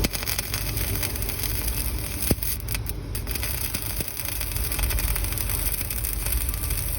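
Electric arc welding on a vertical (3G) weld: the arc crackles and sizzles steadily, with a couple of sharp clicks a little after two seconds in and again at about four seconds.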